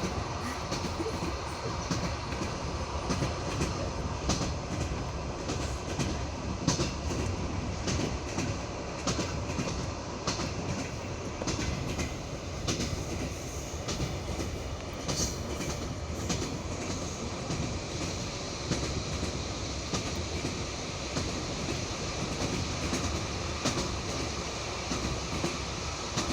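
Train wheels clacking rhythmically over the rail joints of jointed (non-welded) track, heard from aboard the moving train over a steady rolling rumble.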